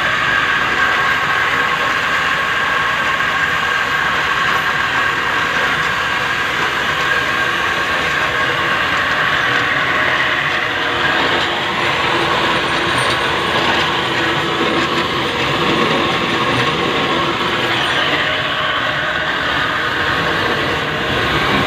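Homemade line-boring machine running steadily, its motor and gearbox turning a boring bar that cuts through a steel pivot bore on a JCB loader. The sound is a continuous mechanical whine and clatter.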